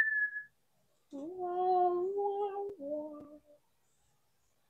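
A high voice holding two sung or hummed notes, the first about a second and a half long, the second lower and shorter. At the start, the end of a whistled note falls away.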